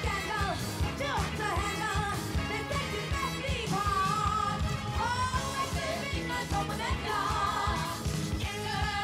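A song playing: a sung melody over a steady, driving beat.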